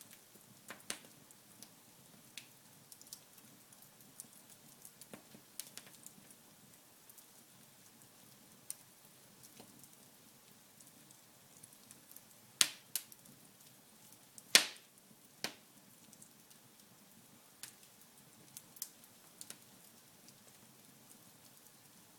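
Wood fire in a fireplace crackling: scattered sharp pops and snaps over a faint steady hiss, with the two loudest pops a little past the middle.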